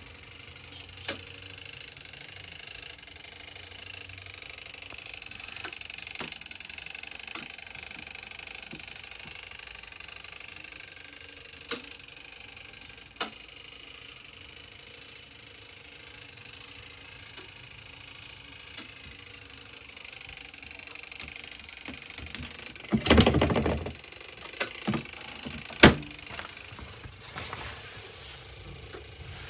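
Water running steadily from a sink faucet, with scattered clicks and knocks and a loud rattling clatter lasting about a second partway through.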